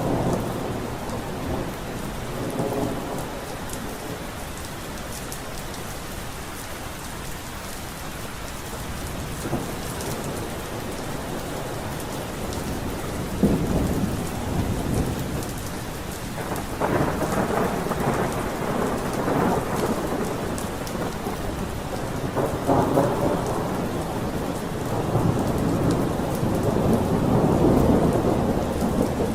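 Steady rain falling, with rolling thunder rumbling in several waves, the loudest near the end.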